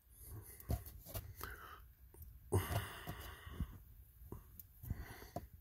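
A man's breathy sigh about halfway through, with a few faint, sharp taps of a fingertip on a diagnostic scan tablet's touchscreen.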